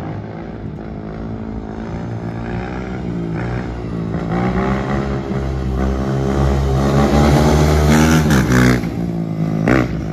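Kayo K6 250 four-stroke dirt bike engine accelerating hard, its pitch climbing and dropping several times as it shifts up through the gears, getting louder toward a peak about eight seconds in, with one more quick rev near the end.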